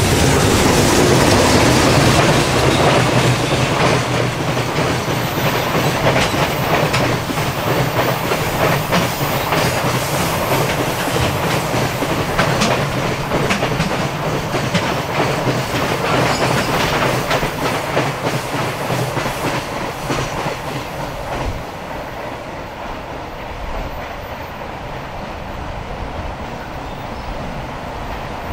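Freight container train hauled by an EH500 electric locomotive passing close by, its wagon wheels clattering rhythmically over the rail joints. It is loudest in the first few seconds and grows quieter in the last few seconds as the train moves away.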